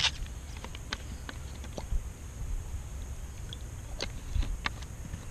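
Wood fire in a Solo Stove wood-burning camp stove crackling, with a few sharp, irregular pops over a low rumble.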